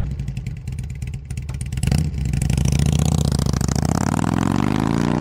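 Motorcycle engine running with a fast pulsing rumble that swells about two seconds in, then revs with a steadily rising pitch near the end.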